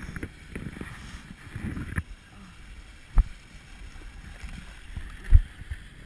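Skiing sounds on a body-worn action camera: a low rumble of wind and snow scraping as the rider slides over packed snow, with two sharp knocks about three and five seconds in, the louder one as the button-lift pole is caught.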